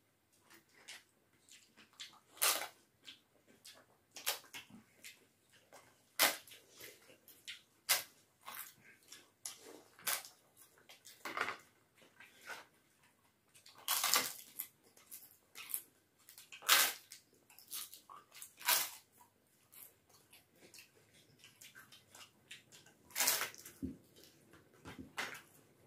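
People eating with their hands: crisp fried papad cracking and crunching as it is broken and chewed, mixed with chewing and mouth noises, in irregular sharp crackles with several louder crunches.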